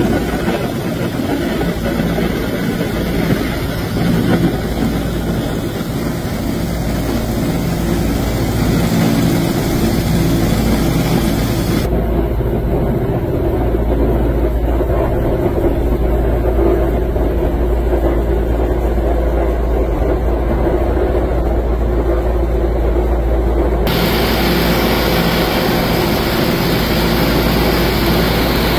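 Radial engines and propellers of a 1929 Ford Tri-Motor droning steadily in cruise flight, heard from inside the cabin. The high hiss over the drone goes dull for about twelve seconds in the middle and then returns.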